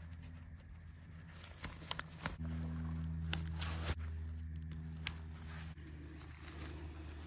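Sharp clicks and rustling of nylon as a plastic buckle and webbing strap are worked at a tent corner, the loudest clicks about three and five seconds in. A low steady droning hum runs underneath from a little after two seconds until near six seconds.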